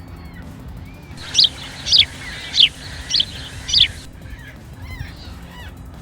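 Five sharp, evenly spaced bird chirps, about one every 0.6 s, each a quick falling note. Fainter gull calls sound before and after them over a low background rumble.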